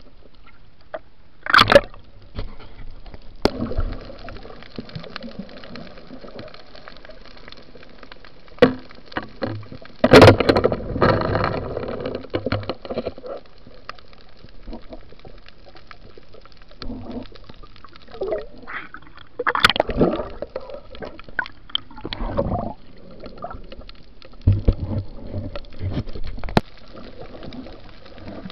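Muffled water sloshing and gurgling picked up by an underwater camera, with irregular louder surges and knocks, the longest lasting a few seconds.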